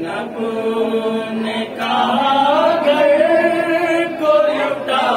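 A group of voices chanting a melodic religious recitation in unison, with long held notes.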